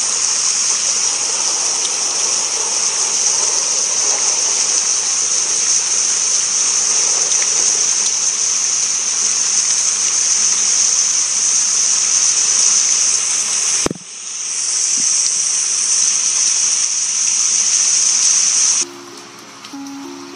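Steady hiss of heavy rain, briefly broken off about fourteen seconds in. Near the end the rain stops abruptly and a quiet, simple melody begins.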